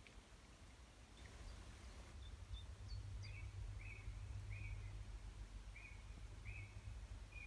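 Outdoor forest ambience with a steady low rumble. A bird gives a few faint chirps, then from about three seconds in a string of six short, similar calls at the same pitch.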